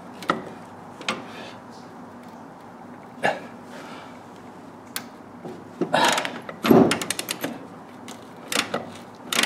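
Ratchet wrench turning a 24 mm deep socket to loosen an oil pressure switch: a few separate clicks and knocks, then a louder clatter and a quick run of ratchet clicks about seven seconds in.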